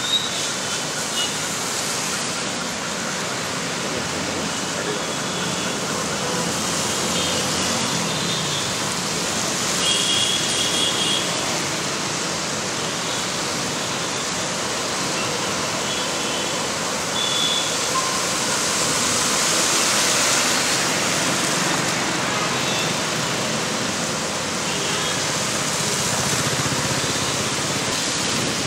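Road traffic driving through a flooded street: motorcycles, cars and a bus splashing and hissing through standing water in a steady rushing noise. A few short, faint high tones come and go within it.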